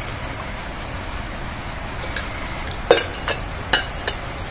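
A metal spoon clinking sharply against a steel bowl about five times in the second half, scraping ground masala paste out into a clay cooking pot, over a steady background hiss.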